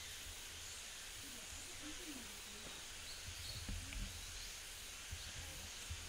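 Outdoor background: a steady high hiss and a low rumble like wind on the microphone, with faint distant voices a couple of times.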